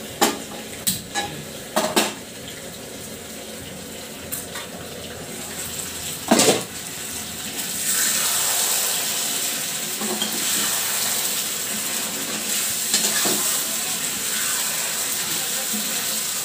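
A metal frying pan knocking and clinking against a gas stove, several sharp knocks with one loud one about six seconds in. From about eight seconds a steady hiss runs on.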